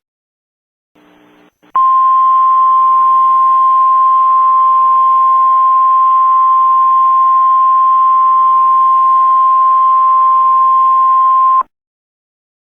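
Emergency alert attention signal: a single steady tone at about 1050 Hz, the NOAA Weather Radio warning alarm tone, held for about ten seconds over radio static hiss and hum. It starts about two seconds in and cuts off abruptly.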